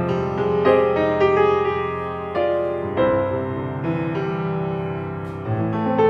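Solo grand piano playing, notes struck one after another and left to ring, with a louder chord struck about three seconds in.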